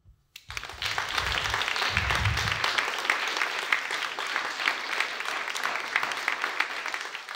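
Audience applauding after a talk: a dense patter of many hands clapping that starts about half a second in, with a low rumble under the first two seconds or so.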